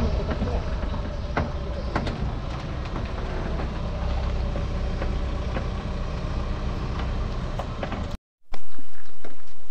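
Vehicle on the move: a steady low rumble of engine and road noise with scattered knocks and rattles. After a cut near the end there is a louder low rumble.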